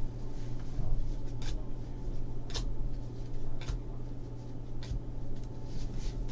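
Trading cards from a 2014 Panini Contenders football pack being flicked one at a time from the front of the stack to the back, a short card-on-card swish about once a second.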